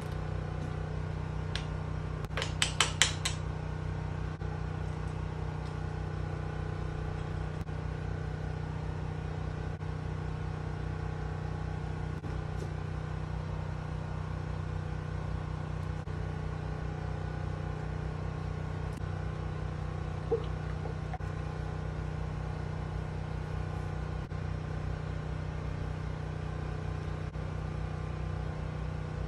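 Steady low mechanical hum, like a fan or motor running, with a quick run of about five sharp clicks about two to three seconds in and one more single click around twenty seconds in.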